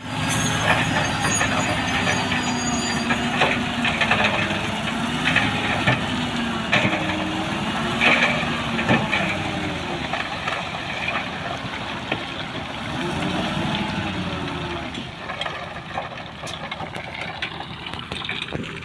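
Caterpillar D6R bulldozer's diesel engine working under load, its pitch rising and falling several times as it pushes, with scattered metallic clanks from the tracks and blade. It eases off somewhat in the last few seconds.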